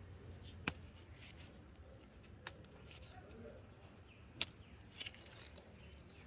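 Guava leaves being plucked from the tree by hand: a few faint, sharp snaps a second or two apart, with light rustling of the leaves.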